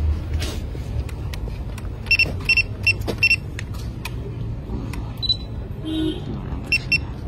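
Quick high electronic beeps, four in a row a few tenths of a second apart about two seconds in and more near the end, over a steady low rumble: warning beeps from a DJI RC Plus drone remote controller that is flagging flight and battery warnings.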